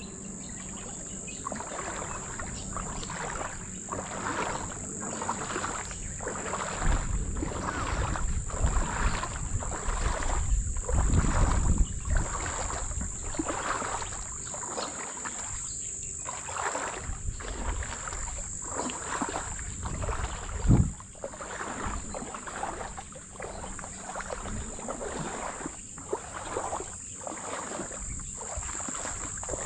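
Legs wading through shallow water, sloshing and splashing in steady strides about one and a quarter a second. A steady high insect drone, crickets or cicadas, runs under it, with a low rumble of wind on the microphone for a few seconds about a third of the way in.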